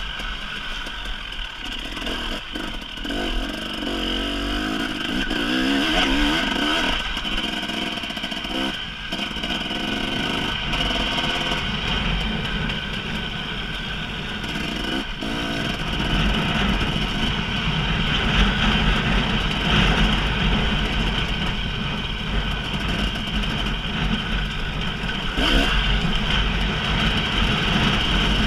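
Single-cylinder two-stroke engine of a 2018 KTM 300 EXC dirt bike running as it is ridden along a trail, heard from a camera on the bike. From about halfway through, a low wind rumble on the microphone joins it.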